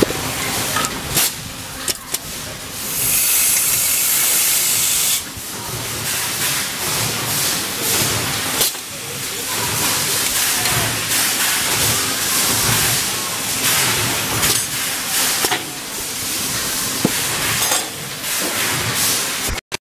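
Metalworking workshop noise: a steady machine din with scattered knocks and clinks, and a loud hiss lasting about two seconds, a few seconds in.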